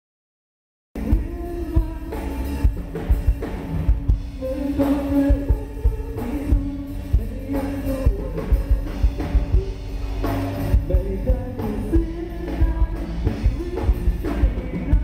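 Live rock band playing through stage speakers: a male singer over electric bass, electric guitar and a drum kit keeping a steady beat. The sound cuts in after about a second of silence at the start.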